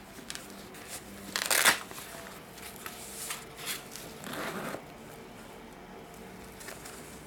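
Padded nylon lens pouch being handled and opened: cloth rustling and small clicks, with a loud scratchy burst about a second and a half in and a shorter, weaker one around four and a half seconds.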